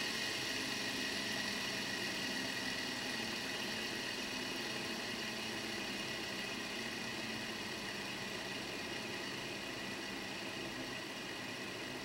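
Fidget spinner with a used ceramic ball bearing spinning freely, a steady whir that slowly fades as it loses speed.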